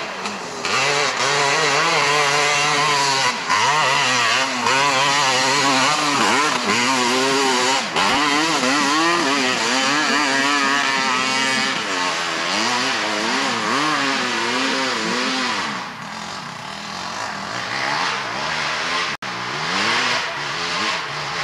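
500cc ATV engine revving hard up a hillclimb, its pitch rising and falling again and again as the throttle works. About sixteen seconds in it turns quieter, and near the end it revs up again.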